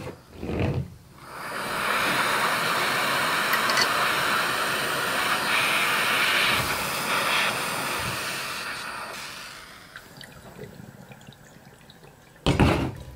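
Handheld butane torch hissing steadily for about eight seconds as it heats the quartz banger of a glass dab rig, then fading out. A brief loud noise comes near the end.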